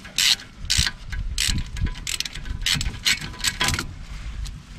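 Socket ratchet clicking in short bursts, about one or two a second, as the 10 mm brake caliper bolt is wound out.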